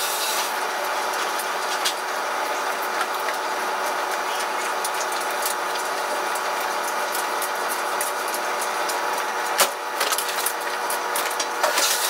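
Steady mechanical hum of coin laundry machines running, with a few sharp clicks and knocks about ten seconds in and again near the end.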